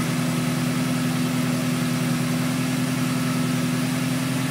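Toyota 3RZ-FE 2.7-litre four-cylinder engine with a TRD Eaton M62 supercharger idling steadily with no load, running as it should now that the vacuum leak has been fixed.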